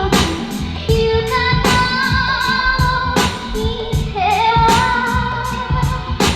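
A song plays back through a Bang & Olufsen Beosound Stage soundbar: a high female voice sings a held, gliding melody over guitar and a steady beat.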